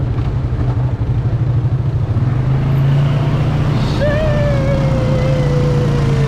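Polaris ATV engine running steadily, getting louder about two seconds in, as the quad wades through shallow muddy stream water. A long, slowly falling tone comes in about four seconds in.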